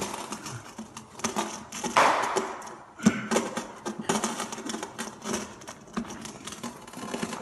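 Irregular clatter of small knocks and clicks, with a loud rushing noise about two seconds in that fades over a second and a sharp knock about three seconds in.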